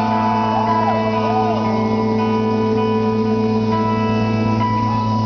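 Loud live rock music: amplified guitars hold a sustained, droning chord, with two short notes that bend up and back down about a second in.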